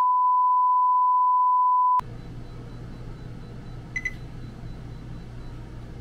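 A steady, high-pitched bars-and-tone test tone holds for two seconds and cuts off suddenly. Then a low steady hum, with one short electronic beep about four seconds in.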